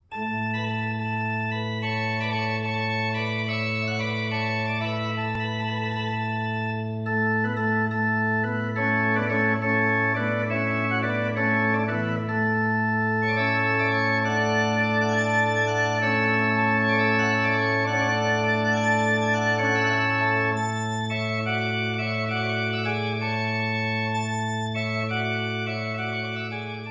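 Arp Schnitger pipe organ playing: a low bass note held steady throughout under moving chords and melody higher up. The music grows fuller about seven seconds in and fades away at the very end.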